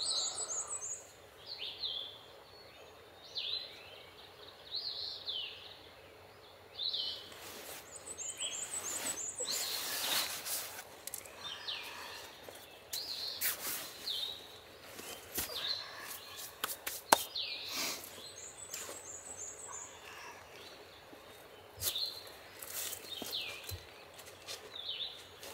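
Songbirds calling: repeated short chirps, and a high, thin rapid trill that comes three times. Rustling of leaves, clothing and gear as a person crawls out of a low shelter on the forest floor and pulls on boots, with one sharp click partway through.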